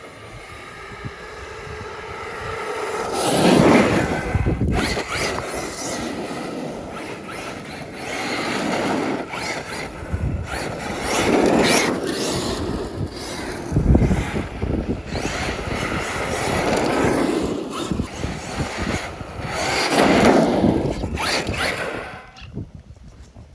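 Arrma Kraton 8S brushless electric RC truck driving by several times: motor whine and tyre noise on the ground swell and fade with each pass, then die away near the end.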